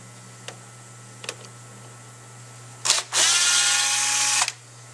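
Hand-held power driver, blipped once and then run for about a second and a half, its motor rising in pitch as it spins up and stopping abruptly, backing out one of the cover screws on an AC dual-action mechanical fuel pump. A few light clicks come before it as the bit is set on the screw.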